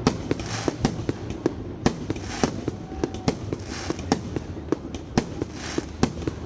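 Aerial fireworks display: a rapid, irregular string of sharp bangs, about three a second, over a hissing haze that swells and fades.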